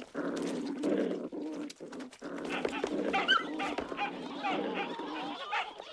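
A crowd of cartoon Dalmatian puppies yipping and whimpering over one another in a steady, busy chatter.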